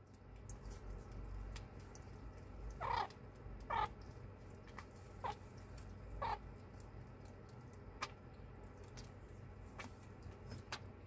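Baby meerkat eating soup from a bowl: four short chirping calls about three, four, five and six seconds in, the first two loudest, with a few soft clicks from its feeding.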